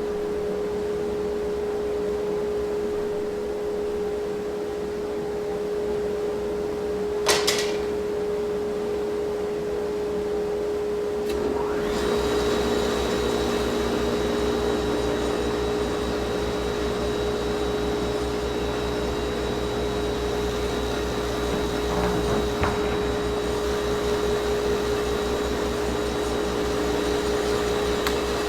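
Table saw and shop dust extraction running steadily with a constant hum. About twelve seconds in the sound thickens and a high whine joins, with a sharp click earlier on.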